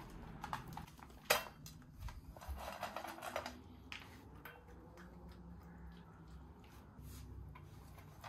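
A toy poodle eating from a stainless-steel bowl: scattered small clicks of food and teeth against the metal, with one sharp knock about a second in and a brief clatter around three seconds in.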